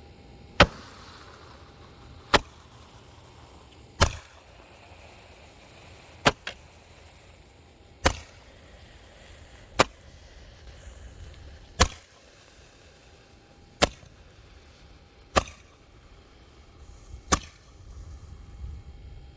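A lighter clicked sharply about every two seconds, ten times, in repeated tries to ignite stale gasoline drained from a small engine's carburetor bowl. The ten-year-old gas barely burns.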